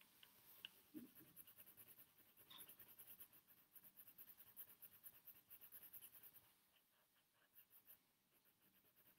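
Faint scratching of a pencil on paper in quick, repeated shading strokes, lighter after about six and a half seconds.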